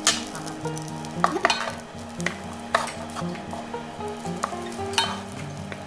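Fried rice sizzling in a nonstick frying pan as a wooden spatula stirs it, with several sharp scrapes and taps of the spatula against the pan.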